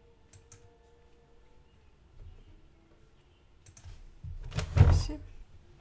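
Light computer mouse and keyboard clicks, a couple early and a few more later, then a louder clatter of clicks with a low thump near the end.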